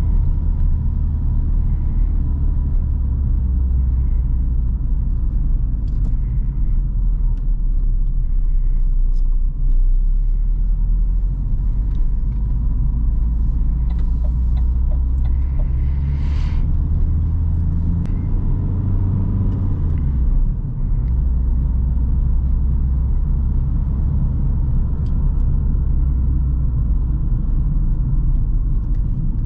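Steady low drone of a 2005 Opel Astra's 1.9 CDTI four-cylinder turbodiesel engine and road noise heard while driving. The engine note falls and briefly dips about twenty seconds in.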